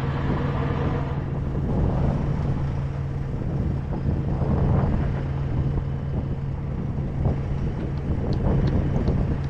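Diesel engine running at a steady idle, a low even hum, with wind buffeting the microphone and a few faint knocks.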